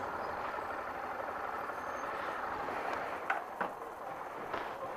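Steady engine and road noise of a minibus passing close by, easing off in the second half, with a few short clicks about three and a half seconds in.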